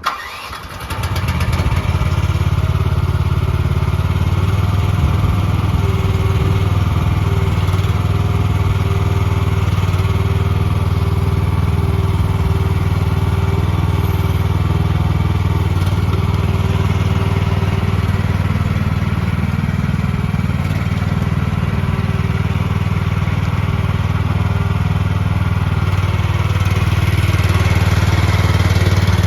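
MIVA VA13 mini excavator's 13.5 horsepower gas engine starting and coming up to speed within the first second or two, then running steadily. It gets a little louder near the end.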